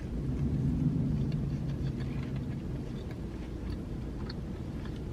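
Close-miked chewing of a mouthful of Big Mac: a low rumble, strongest in the first two seconds, with small wet mouth clicks scattered throughout.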